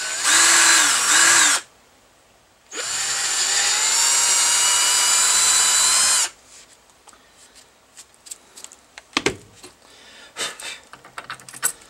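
Cordless drill boring out a hole to 7/16 inch in a 3D-printed plastic upper control arm. It runs in a short burst, stops for about a second, then runs again for about three and a half seconds, its pitch climbing as it spins up. After it stops there are light clicks and knocks.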